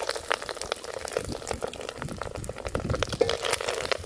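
Wooden spatula stirring and scraping egg-coated fish and cabbage in a metal pot over a wood fire, with wet bubbling and a dense run of irregular crackles and clicks from the cooking food.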